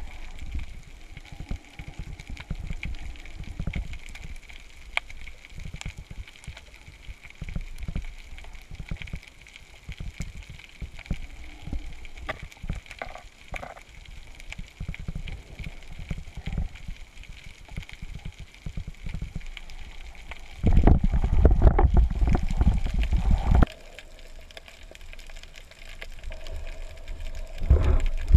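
Underwater sound picked up through a camera housing mounted on a speargun during a spearfishing dive: a faint water hiss with irregular low knocks and crackles. About three quarters of the way in there is a much louder low rumbling noise lasting about three seconds, and another short loud burst comes near the end.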